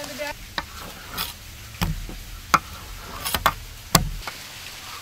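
A large mass of dough being kneaded and handled on a table: soft pressing and rubbing, with about seven sharp taps and knocks against the tabletop at irregular intervals.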